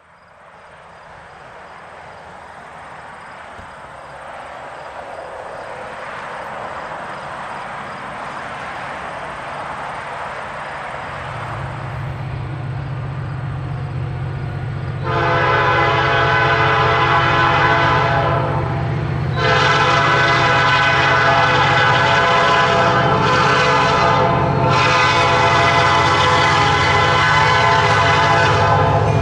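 An EMD SD35 diesel-electric locomotive approaches with its freight train: a rumble that builds steadily, the engine's low drone coming in about a third of the way through. About halfway in, the locomotive's air horn starts blowing for a grade crossing in long blasts with two short breaks, and is the loudest sound from then on.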